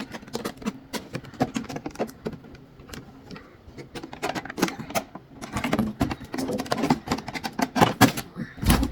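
Clear plastic storage containers and their packaging being handled: a steady run of clicks, taps and rustles, busier in the second half, with a heavier thump near the end.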